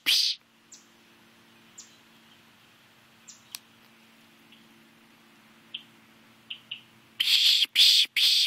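Pishing: a person making rapid, loud 'pssh-pssh' shushing sounds through the lips to call songbirds in, about three a second, breaking off just after the start and resuming about seven seconds in. In the pause, a few faint, short, high bird chirps over a low steady hum.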